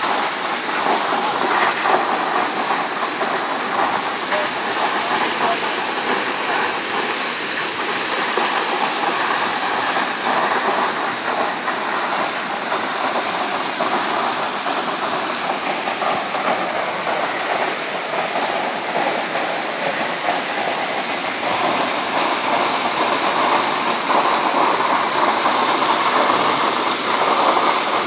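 Waterfall rushing: a loud, steady wash of falling water pouring over granite, a little louder in the last few seconds.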